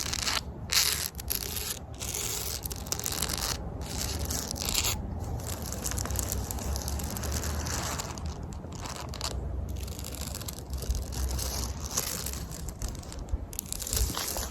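Fingernails scratching across a surface in a run of rasping strokes, with brief pauses between them every second or two.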